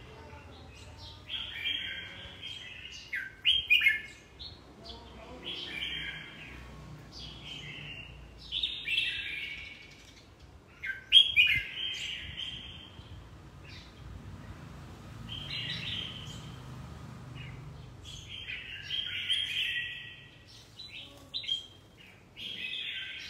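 Red-whiskered bulbul singing: a string of short, bright, warbled phrases, each about a second long with brief pauses between them.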